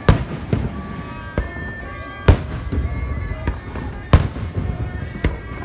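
Aerial fireworks shells bursting overhead: about six sharp bangs at uneven intervals, the loudest a little past two seconds and just after four seconds in.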